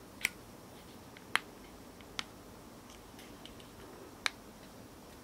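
Plastic propeller guards snapping onto the arms of a Xiaomi MiTu mini quadcopter: four sharp clicks a second or two apart, with faint plastic ticks between them.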